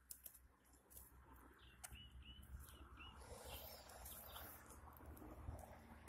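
Faint rustling in grass, with four short, high bird chirps about two to three seconds in.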